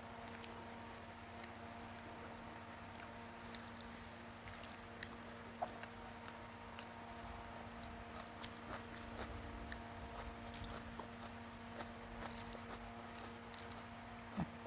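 A person chewing a mouthful of rice and fish curry eaten by hand: soft wet mouth sounds and scattered small clicks, with fingers squishing through the rice, over a steady low hum. Two louder clicks stand out, one about halfway through and one near the end.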